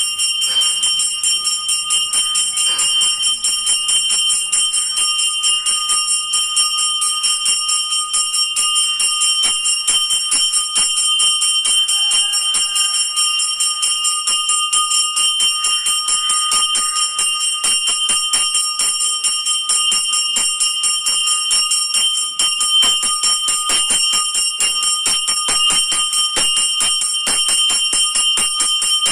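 Temple bell rung rapidly and without pause, a steady metallic ringing of many quick, even strokes, as is done during the lamp-waving offering (aarti) before the deity.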